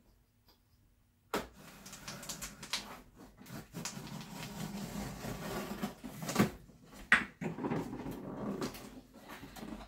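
Cardboard shipping box being opened by hand: packing tape and cardboard flaps rustle and scrape as the top flaps are worked loose and lifted, with two sharper knocks past the middle. It starts abruptly after about a second of near silence.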